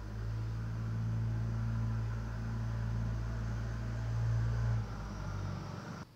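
A steady low motor hum that builds up, holds level, eases off a little about five seconds in, and then cuts off suddenly near the end.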